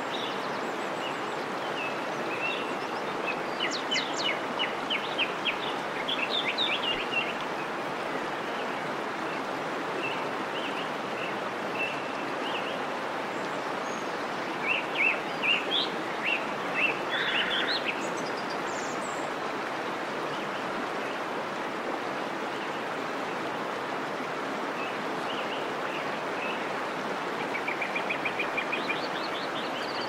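Steady rush of a waterfall and its rocky stream cascade. Small birds chirp over it in short rapid series a few seconds in, around the middle, and again near the end.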